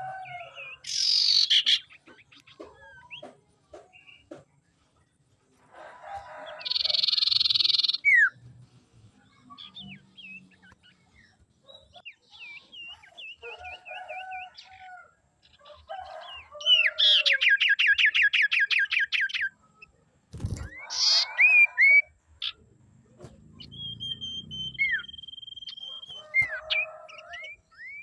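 Common iora calling in a varied series: harsh buzzy notes, short whistled chirps, a fast trill lasting about two and a half seconds, and a long steady whistle near the end.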